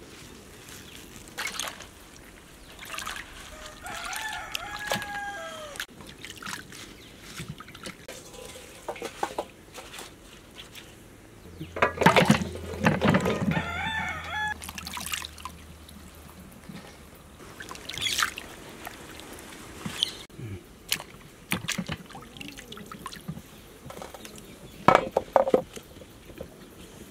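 Water poured from a stainless-steel bowl into another steel bowl of carrots, splashing loudly about twelve seconds in. A rooster crows a few seconds in, and a few sharp knocks sound near the end.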